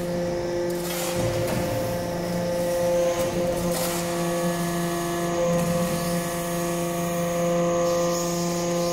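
Hydraulic power unit of a vertical metal-chip briquetting press running with a steady hum, with a couple of brief faint knocks over it.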